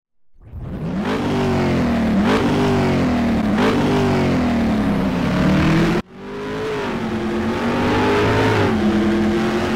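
Car engine revving hard as it accelerates through the gears, its pitch climbing and then dropping back at shifts about two and three and a half seconds in. The sound cuts off abruptly about six seconds in, and a second run of the engine starts straight after.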